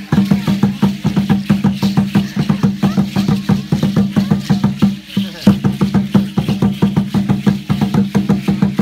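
Aztec dance drumming: a fast, even drumbeat with rattles shaking along, breaking off briefly about five seconds in.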